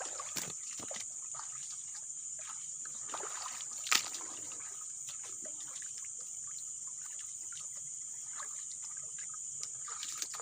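Water trickling and splashing in small irregular spurts, with one sharp click about four seconds in, over a steady high-pitched chorus of night insects.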